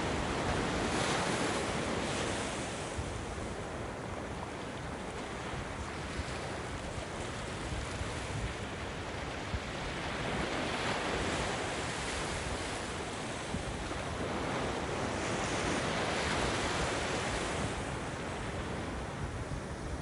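Ocean surf: small waves breaking over rocks and washing up a sand beach, a steady rushing hiss that swells as each wave breaks and ebbs between them.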